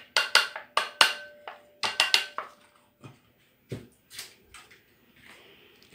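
Kitchen clatter as a plastic yogurt pot is knocked and scraped against a glass mixing bowl while plain yogurt is emptied into it. A quick run of sharp knocks and clicks comes in the first two and a half seconds, with a few more a little later.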